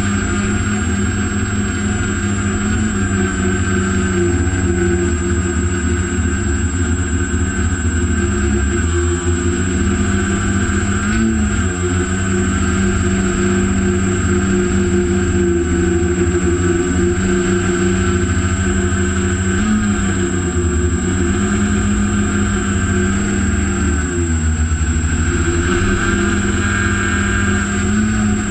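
Heavy-lift quadcopter's electric motors and propellers buzzing steadily in flight, heard from a camera mounted on the craft, the pitch dipping and rising a few times as the throttle changes. A low rumble runs underneath, with a thin high whine throughout.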